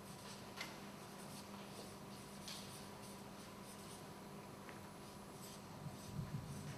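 Felt-tip marker scratching and squeaking in short strokes on a paper flip chart, faint, over a steady room hum. A few soft low thumps come near the end.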